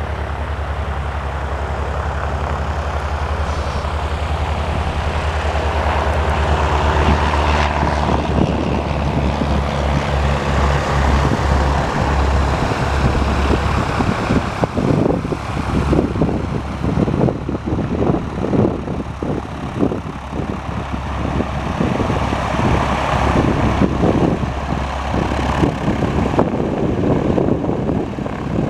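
Cessna 172R Skyhawk's four-cylinder piston engine and propeller at takeoff power, a steady drone through the takeoff roll and lift-off. From about halfway through the drone is mixed with gusty wind buffeting the microphone as the plane climbs away.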